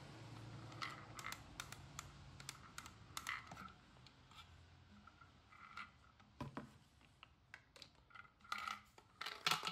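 Faint, irregular plastic clicks and scrapes as the threaded pump head of a Kwazar Venus foamer pump sprayer is twisted off its bottle and the plastic bottle is handled. The clicks come in clusters and are loudest near the end.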